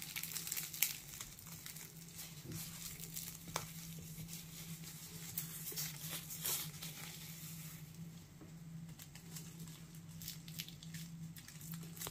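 Oven-baked puff pastry being torn apart by hand, its flaky layers breaking in faint, scattered crackles and rustles, over a low steady hum.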